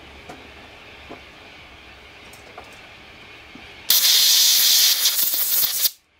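Compressed-air blow gun giving a loud, steady hiss for about two seconds, blowing chips off a machined pulley in the vise. Before it there are only a few faint clicks over a low background.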